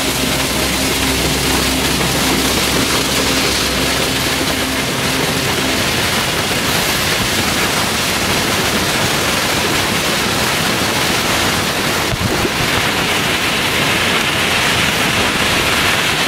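Waterfall rushing: a loud, steady wash of falling water with no break.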